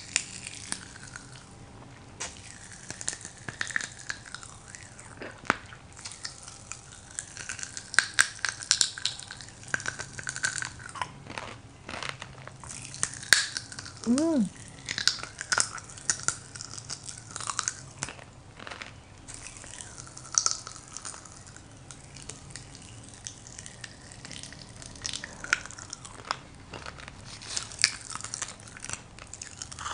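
Popping candy crackling and snapping in a mouth: many sharp little pops scattered throughout, mixed with mouth and lip sounds. About halfway through there is a short rising vocal sound of reaction.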